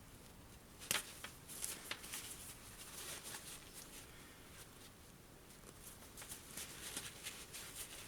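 Seam ripper picking and cutting stitches in a backpack seam while the fabric is handled: irregular rustling with small clicks and snaps, the sharpest about a second in.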